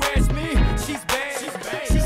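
Hip hop track: a rapped vocal over a heavy, regular bass-drum beat.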